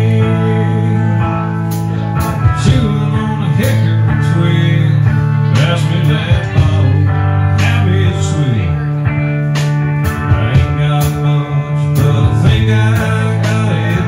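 Live country band playing an instrumental passage: guitar over bass and drums, the guitar bending notes now and then, with steady drum and cymbal hits.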